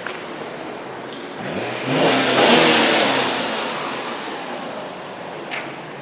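2001 Audi S4's 2.7-litre twin-turbo V6 idling during a Seafoam treatment, revved once about a second and a half in, the pitch rising to a peak and then falling back slowly to idle. Under the engine note the owner hears a metal-on-metal sound like keys jingling, which he cannot place.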